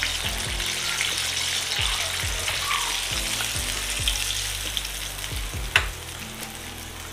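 Coated chicken pieces sizzling as they deep-fry in hot oil in a kadhai. The sizzle thins toward the end, with one sharp click about six seconds in.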